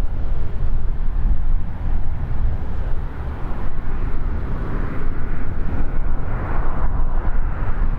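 Strong wind buffeting the camcorder microphone in a heavy, constant rumble, with the engine noise of a distant jet airliner swelling from about four seconds in and easing near the end.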